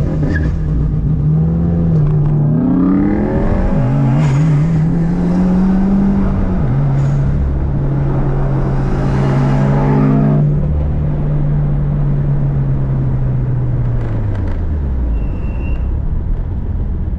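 Subaru turbocharged flat-four engine heard from inside the cabin, accelerating hard from a launch: its pitch climbs and drops back at gear shifts about four and seven seconds in, holds steady, then falls away as the throttle is lifted near the end.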